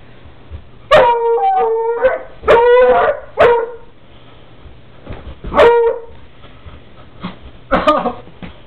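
A dog giving a string of drawn-out, howl-like barks, about six calls. The first few last up to a second each, and the later ones are shorter and further apart.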